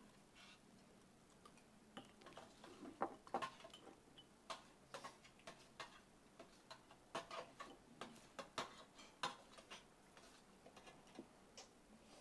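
Faint, irregular clicks and smacks of people eating, with most of them clustered in the middle stretch.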